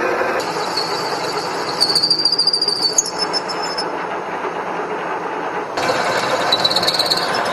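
Horizontal boring mill cutting steel: a steady mechanical noise of the spindle and tool at work, with a rapid rattle and a high whine about two seconds in and again near the end. The sound changes abruptly twice.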